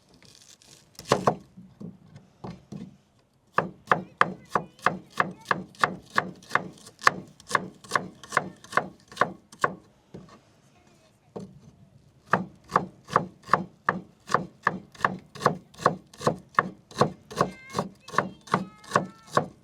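Knife chopping on a wooden cutting board: an even run of about three cuts a second, a pause of about two seconds, then another run. A single louder knock comes about a second in.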